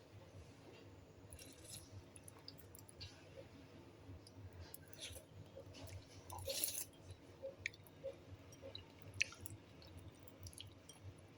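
Faint, scattered clicks and light taps, with a short rustling noise about six and a half seconds in and a sharper tick near nine seconds.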